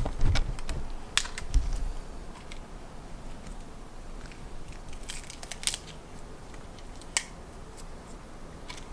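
Scattered light clicks and taps of small objects being handled, busiest in the first two seconds and again about five to six seconds in.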